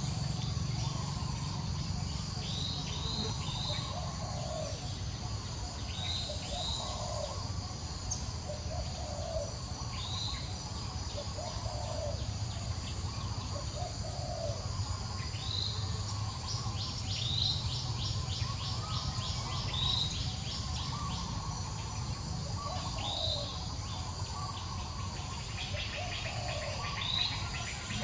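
Birds and insects calling: short high bird notes in clusters of two or three every few seconds, a lower call repeating about every two seconds, and a steady insect buzz that breaks into a fast pulsing trill in places, over a low steady rumble.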